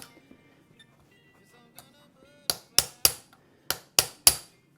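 Hammer striking metal: six sharp, ringing blows in two quick groups of three in the second half, knocking a set-screwed part out of a key duplicating machine's mechanism.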